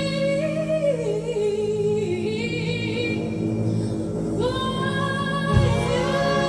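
Female soprano singing a live ballad over band accompaniment: a held high note that steps down over the first couple of seconds, then a new note held with vibrato from about two-thirds in, as the accompaniment grows fuller near the end.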